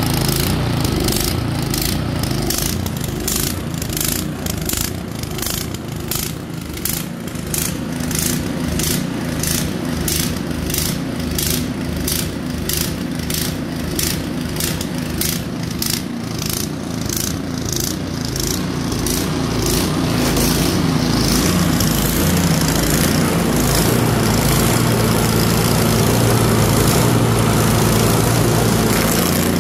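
Troy-Bilt Storm 2410 two-stage snow blower's single-cylinder four-stroke engine running shortly after a cold start, pulsing evenly about twice a second. About two-thirds of the way in it gets louder and steadier as the auger is engaged and spinning.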